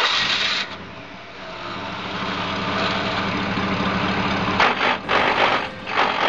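Rally car engine running steadily, growing louder over the first couple of seconds, with a few short surges near the end.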